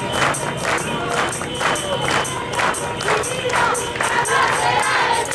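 Marching crowd chanting together over a fast, steady beat of sharp percussive strikes, about four a second.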